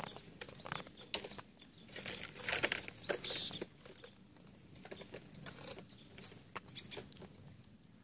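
Crunching and rustling footsteps on snow, loudest around two to three and a half seconds in, with small birds calling. One call is a short high whistle falling in pitch about three seconds in.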